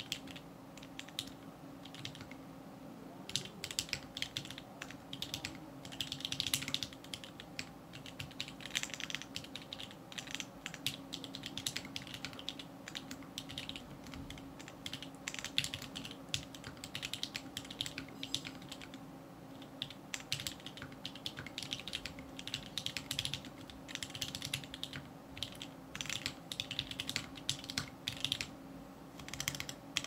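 Typing on a KPRepublic 60% mechanical keyboard with lubed Outemu Sky 68g switches and clipped, band-aid-modded stabilizers: quick runs of key clicks and clacks in bursts with brief pauses.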